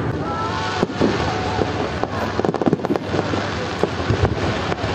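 Fireworks display going off: a rapid, irregular string of sharp bangs and crackles over a constant wash of noise, thickest about two to three seconds in.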